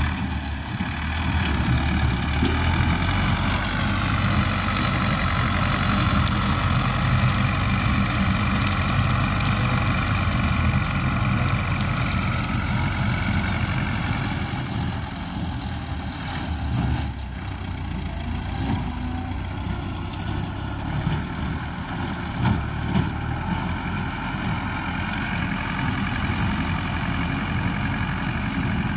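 Farm tractor engine running steadily as it pulls a rotary mower through grass, its pitch dipping slightly a few seconds in and rising again near the end.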